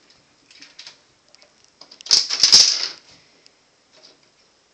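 Bottle cap batted by a kitten, skittering and clattering across the bathtub floor in a quick run of sharp clicks about two seconds in, with a few light taps before it.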